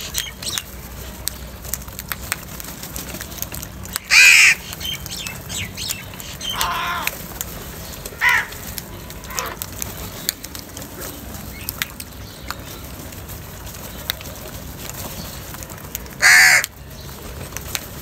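House crows cawing: single harsh caws spaced several seconds apart, the loudest about four seconds in and again near the end, with a few weaker caws around seven and eight seconds. Faint short ticks sound between the calls.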